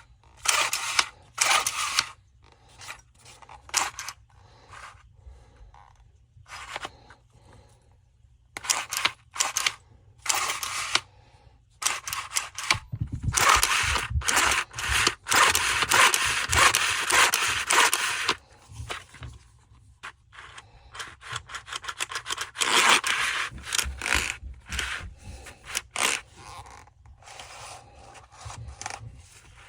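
Scraping, rubbing and clicking of cut-off saw parts being handled and fitted by hand. Short clicks and scrapes come throughout, with a longer stretch of continuous scraping in the middle.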